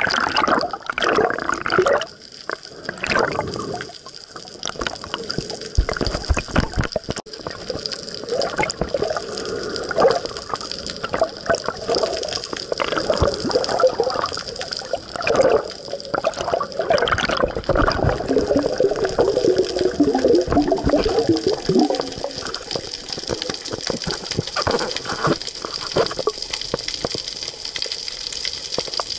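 Seawater splashing around a camera as it dips below the surface, then muffled underwater sloshing and gurgling against the camera.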